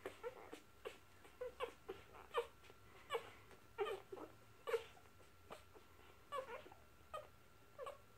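Young puppies squeaking and whimpering while they nurse: short, high calls, mostly falling in pitch, coming a couple of times a second, with faint clicks between.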